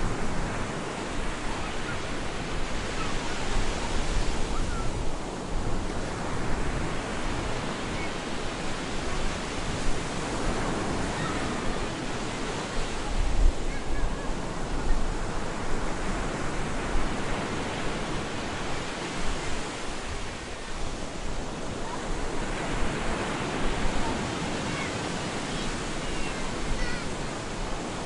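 Stormy sea surf breaking on a beach: a continuous rush of waves that swells and eases about every seven seconds.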